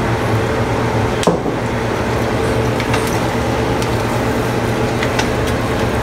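A steady mechanical hum, with a few sharp clicks and scrapes of a spatula stirring fried rice in a wok; the sharpest click comes about a second in.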